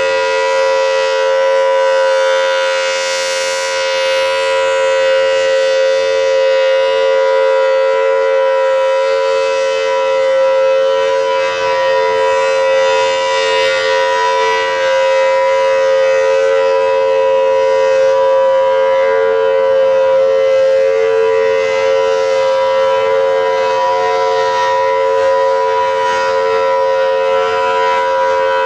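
Federal Signal Thunderbolt 1000AT outdoor warning siren, early A2 series with the larger 5M blower, sounding a steady, unbroken tone at full speed. It is very loud, and its upper overtones swell and fade every several seconds.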